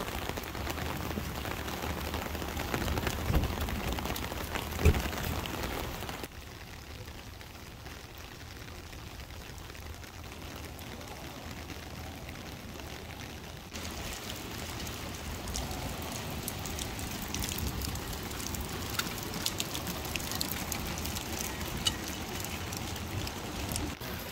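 Rain falling on wet pavement and puddles, a steady hiss of splashing drops. It turns quieter at about six seconds and fuller again about fourteen seconds in, with scattered sharper drop ticks later on. There is a single knock about five seconds in.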